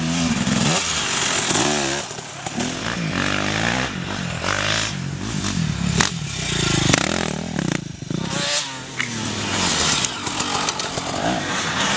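Off-road race dirt bike engines revving up and down, several overlapping, with pitch repeatedly rising and falling as the riders work the throttle and shift through the course.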